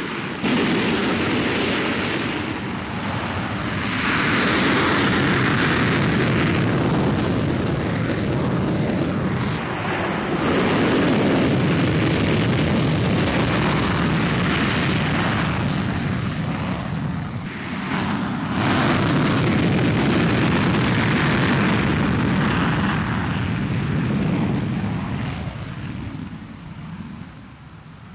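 F-16 Fighting Falcon's jet engine at takeoff power on its takeoff roll: a loud, steady roar that swells and dips a few times, then fades over the last few seconds as the jet moves off down the runway.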